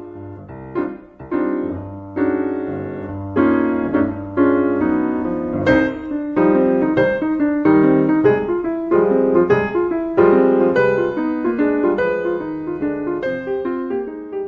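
Piano music: a melody of single notes and chords struck one after another at an even, unhurried pace.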